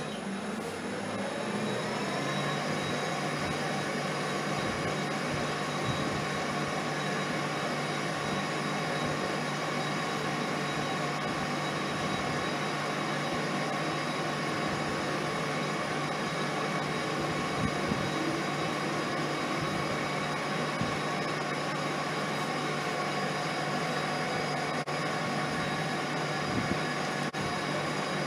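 Homemade metal lathe switched on with a click, its motor and drive running up to speed over about two seconds with a rising whine, then running steadily with the four-jaw chuck spinning.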